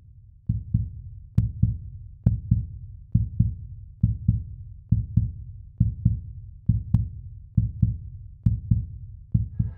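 Heartbeat sound effect: pairs of low thumps, lub-dub, repeating steadily about every 0.9 seconds, with a sharp click on some of the beats.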